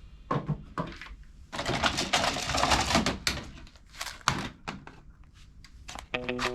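Plastic toy gun clicking and clattering: a few sharp clicks, a dense rattling burst lasting about two seconds, then more single clicks. Music starts near the end.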